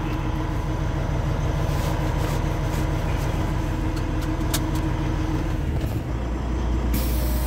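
Kenworth semi truck's diesel engine idling, heard from inside the cab as a steady low hum. About six seconds in the hum shifts lower and steadier, and a steady hiss comes in a second later.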